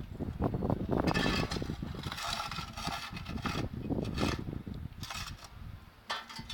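Irregular scraping and rattling in uneven strokes, like a mechanism or tools working against a rough surface.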